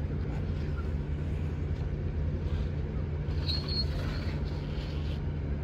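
Steady low machine hum, running evenly throughout, with a brief high squeak a little past halfway.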